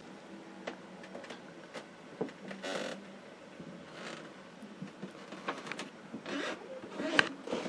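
Handling noise: scattered light clicks and taps with a few short rubbing scrapes as a phone is held and moved over a workbench, the loudest scrape near the end.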